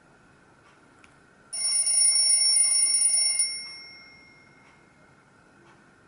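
A built-in alert tone of a Nokia Asha 202 playing through the phone's small loudspeaker: a bright, fast-trilling electronic ring about two seconds long that starts about one and a half seconds in, then rings away.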